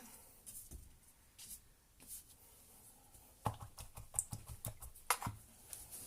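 Faint scratchy strokes and taps of a brush dabbing and scrubbing acrylic paint onto canvas, sparse at first and busier in the second half.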